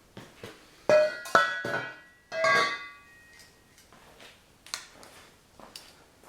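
A few metallic clinks and knocks, the first three in quick succession about a second in and another a little later, each leaving a brief ringing tone.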